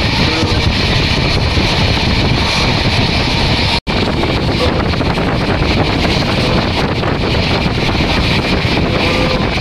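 Moving passenger train running at speed, heard as a loud steady rush of wheel and track noise with heavy wind buffeting the microphone. The sound cuts out for a split second about four seconds in.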